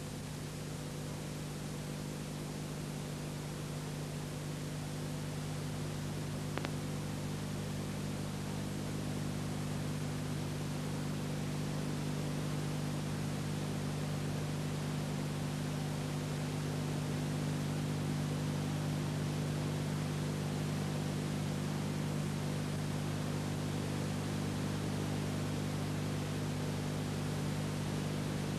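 Steady hiss with a low electrical hum and no other sound: the blank soundtrack of an old silent film transferred to video. A single faint click about six and a half seconds in.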